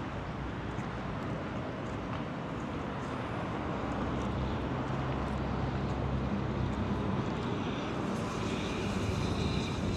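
Steady outdoor rumble with a low engine hum running underneath; near the end a higher whine joins in.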